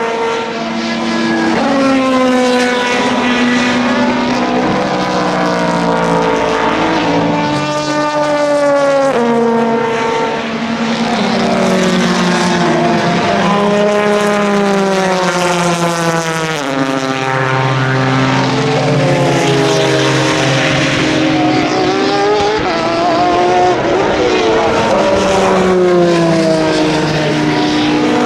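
Endurance racing cars passing at speed, several in turn, their engines changing gear so the engine note steps down and climbs again, with more than one car heard at once.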